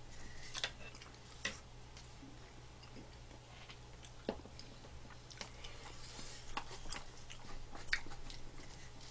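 Quiet eating at the table: irregular sharp clicks and taps of a spoon and chopsticks against cup-rice containers, the loudest about four seconds in as a cup is set down on the table, with faint chewing, over a steady low hum.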